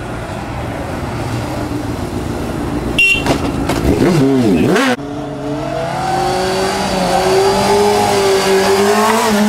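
Sport motorcycle engine revving hard in quick rises and falls about three seconds in. After a sudden cut it settles into a steady high engine note that slowly rises and eases as the rider holds a wheelie.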